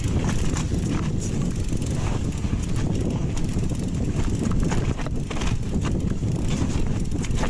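Mountain bike rattling and clattering over a rocky trail, many irregular knocks and clicks, with a heavy wind rumble on the microphone.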